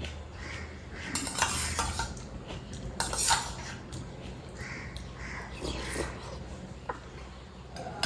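Dishes and utensils clinking and scraping during a meal, mixed with eating sounds. There are louder scraping clatters about a second in and again about three seconds in.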